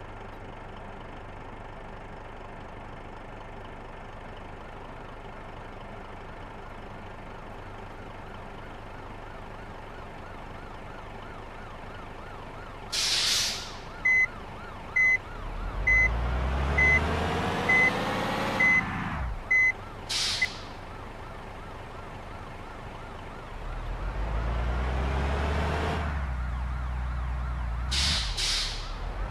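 Road traffic with large buses driving past. About halfway through, a bus goes by with a loud rumble and a string of about seven short high beeps, and sharp hissing bursts come just before it, after it and near the end. A second vehicle passes a few seconds later.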